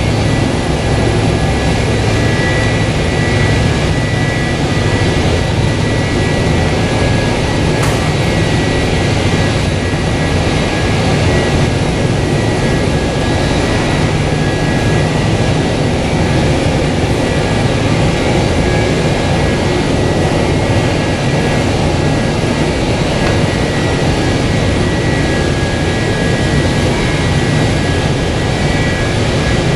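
The rear-mounted Pratt & Whitney JT8D turbofans of a McDonnell Douglas MD-82 running steadily during pushback: a constant high whine over a dense, even rumble.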